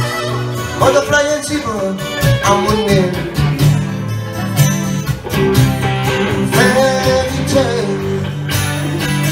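Small live band playing through PA speakers: electric and acoustic guitars, with a harmonica played into a microphone at first.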